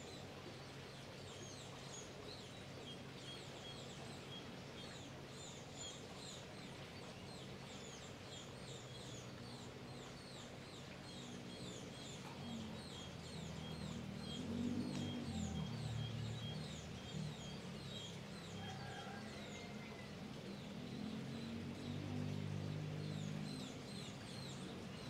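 A small bird repeats a short, high chirp about twice a second over faint outdoor background noise. A low hum swells up about halfway through and again near the end.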